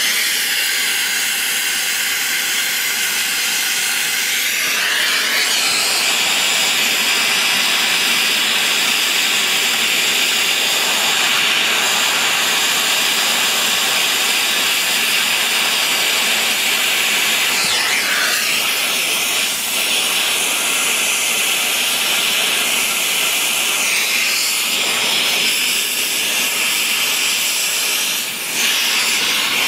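Brazing torch flame hissing steadily on a copper line joint at an evaporator coil, with a few brief swooshes in its tone as the torch moves.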